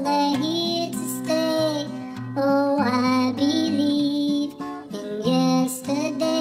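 Background music: a voice singing a slow ballad over acoustic guitar, with sustained low notes underneath.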